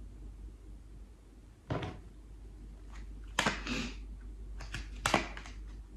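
Tarot cards shuffled by hand: a few short slaps and flicks of the cards, one alone and then a quick cluster in the second half.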